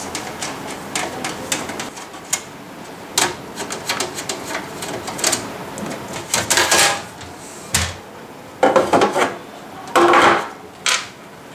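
Metal Mini-ITX computer case being handled on a wooden table: scattered clicks and knocks as it is turned around. In the second half come louder metallic scrapes and rattles as the cover panel is slid off the chassis.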